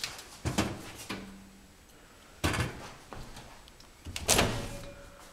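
Over-the-range microwave door being handled, opened and pushed shut, giving several clunks and knocks. The loudest comes about four seconds in.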